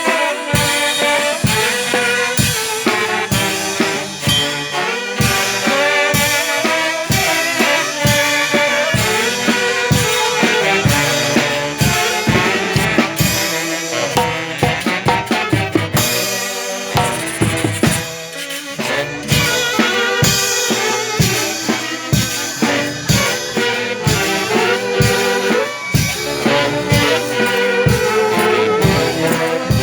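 Band music: horns playing a melody over a drum kit keeping a steady beat.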